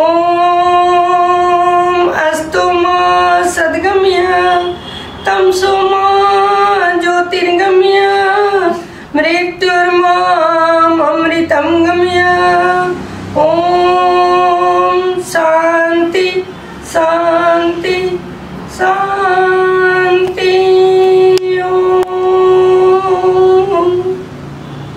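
A woman chanting Sanskrit mantras in a sung voice, holding long notes on a steady pitch, with short pauses for breath between phrases.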